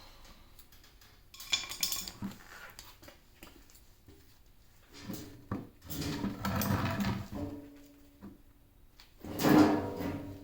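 Juiced CCX e-bike's hub motor grinding in three separate bursts, with a steady hum in the later ones; the last burst is the loudest. The grinding is the fault being shown.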